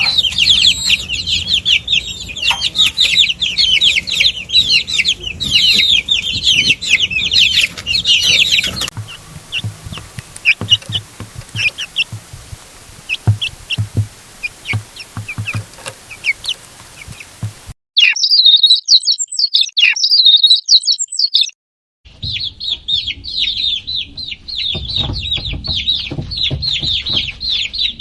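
Many chicks peeping rapidly and continuously in high, quick cheeps. The audio is spliced from several takes, with a sparser stretch in the middle where a few peeps mix with low knocks.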